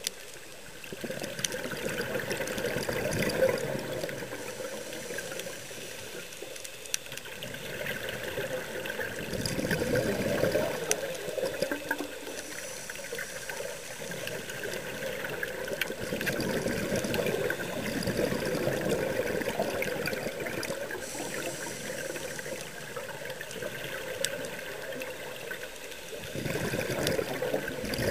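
Scuba diver breathing through a regulator underwater: the exhaled air bubbles in swells a few seconds long, about every seven seconds, with a quieter hiss between them.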